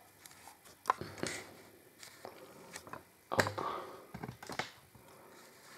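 A few scattered short knocks and scrapes, the loudest about three and a half seconds in.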